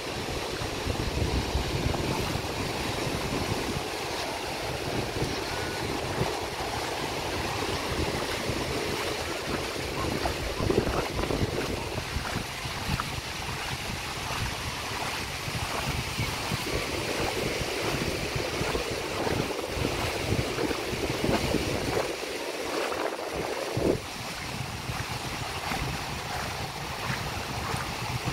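Wind buffeting the microphone over the steady wash of small waves on a sandy beach. The low wind rumble drops away for a couple of seconds late on, then returns.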